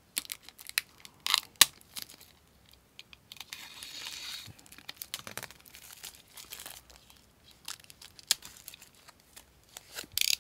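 Packaging wrap on a boxed book set being torn open and crinkled: irregular crackles and snaps, with a longer tearing stretch about three and a half seconds in.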